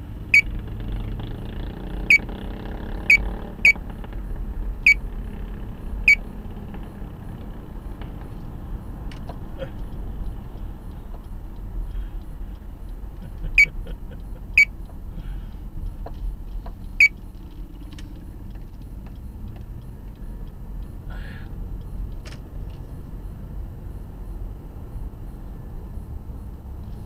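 Inside a moving car: steady low engine and road rumble, broken by sharp, short ticks at irregular intervals. The ticks come six times in the first six seconds and three more times a little past the middle, and they are the loudest sounds.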